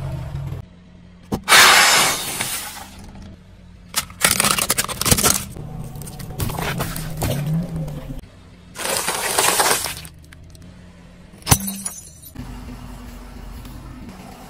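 A car tyre rolling over and crushing small objects such as drink packages, in a series of separate crunching bursts, four loud ones of about a second each, then a single sharp crack later on.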